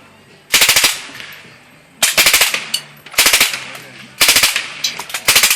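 Rifle, AR-15 style, firing in short bursts of rapid shots: about five bursts roughly a second apart, each a few quick shots followed by a fading echo. Firing continues until the magazine runs empty.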